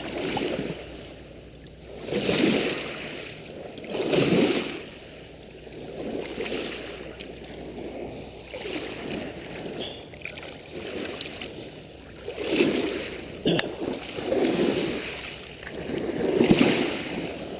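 Small waves washing onto the beach at the water's edge, the noisy wash swelling and fading every couple of seconds.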